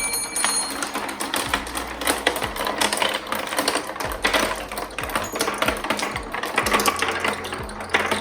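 A pack of marbles rolling and clattering down a marble run track, a fast irregular stream of clicks and rattles.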